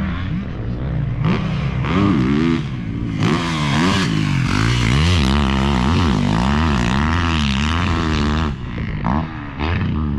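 A four-stroke single-cylinder motocross engine, heard on board, revving up and down over and over with the throttle. Its pitch rises and falls several times and eases off briefly near the end, with wind noise over it.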